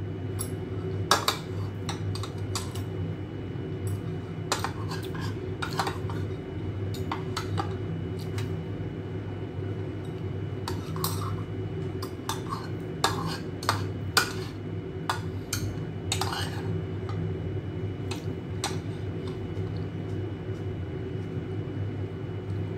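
Metal spoon and chopsticks clinking and scraping against a ceramic bowl while eating noodle soup: a scattered series of short, sharp clinks. A steady low hum runs underneath.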